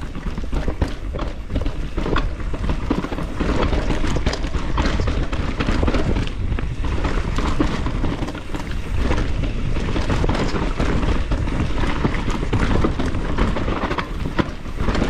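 Mountain bike riding a rough, rooty singletrack descent: a steady rumble of tyres over dirt and roots with many small rattles and clacks from the bike, and wind on the microphone.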